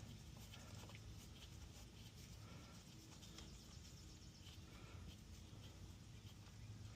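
Near silence: faint outdoor background with a few faint, scattered light clicks.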